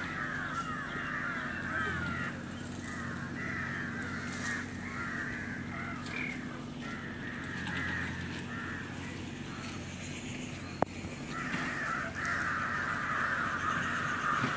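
A flock of crows cawing and chattering over one another, thinning out in the middle and growing denser again over the last few seconds. A single sharp knock comes about eleven seconds in, over a faint low steady hum.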